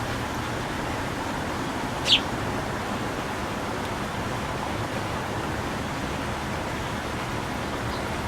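A single short, sharp bird chirp about two seconds in, sweeping down in pitch, with a fainter one near the end, over a steady outdoor background hiss.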